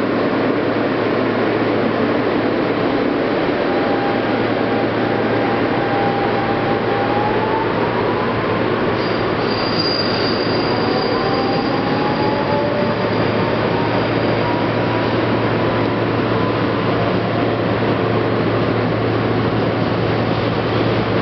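Interior running noise of an R160B subway car: a steady rumble of wheels on rail, with a motor whine that rises in pitch twice. A thin, high wheel squeal runs from about nine to fifteen seconds in.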